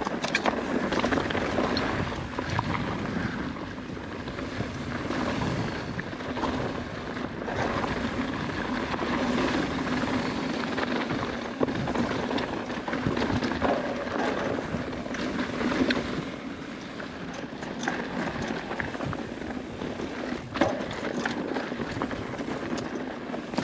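Mountain bike rolling over rocky, gravelly singletrack: tyres crunching on loose rock, with many small knocks and rattles from the bike as it rides over the rough ground.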